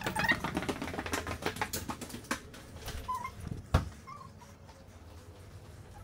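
Footsteps going down wooden stairs: a quick run of taps and clicks over the first two and a half seconds, then one heavy thump just before four seconds in. Two faint, short, high squeaks come between the steps.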